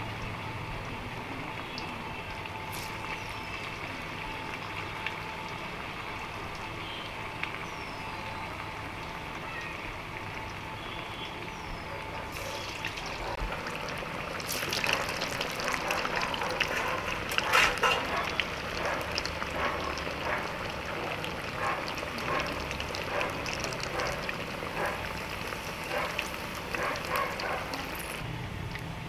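Sabudana vadas deep-frying in hot oil in a steel kadhai: a steady sizzle that turns into loud, busy crackling about halfway through as more vadas go into the oil.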